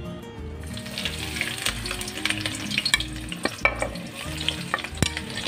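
Sliced onions dropping into a karahi of hot oil and sizzling, a dense crackling hiss with many small pops that starts about half a second in.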